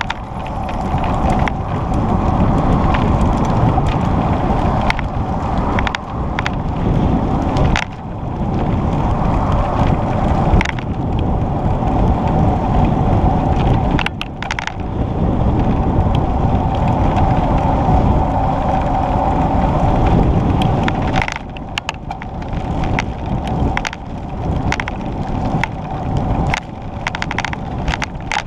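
Wind rushing over the microphone of a camera riding on a moving bicycle, mixed with a steady rumble and many small rattling clicks from the ride. It eases somewhat about two-thirds of the way through.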